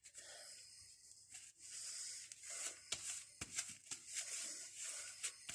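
Faint handling noises from tools on a workbench: light rubbing and rustling with a few small clicks and knocks scattered through.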